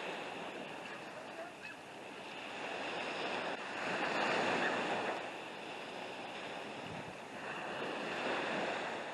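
Surf washing onto the beach, a steady rush of breaking waves that swells louder about four seconds in.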